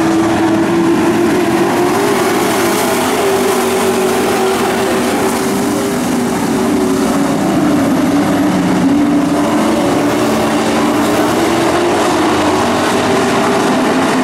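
A pack of dirt-track pro trucks running at race speed, several engines at once. Their overlapping engine notes waver slightly over a steady loud din.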